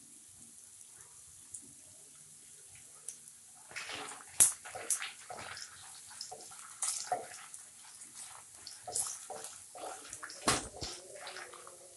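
Spatula stirring and scraping spices roasting in oil in a pan, with irregular clicks, scrapes and knocks against the pan that start about four seconds in. There are sharp knocks at about four and a half seconds and near ten and a half seconds.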